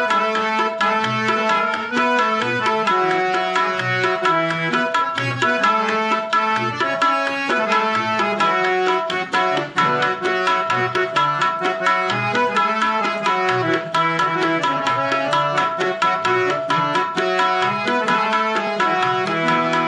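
Harmonium playing the melody of a Hindi devotional song over a steady tabla rhythm.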